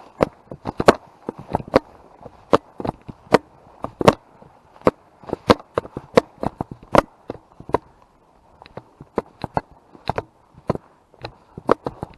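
Footsteps through woodland undergrowth: an irregular run of sharp crunches and snaps, several a second, with a brief lull about two-thirds of the way in.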